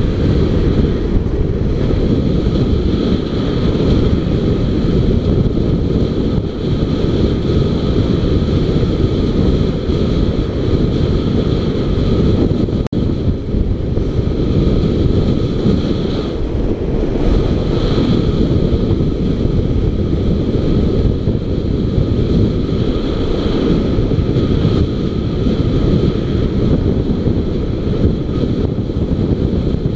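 Wind buffeting the microphone of a camera mounted on a moving motorcycle: a loud, steady rumble, with the motorcycle running underneath it.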